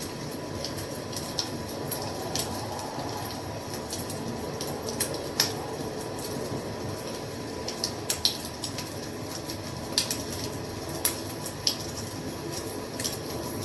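Wood fire crackling: irregular sharp pops and snaps over a steady low rush of the flames.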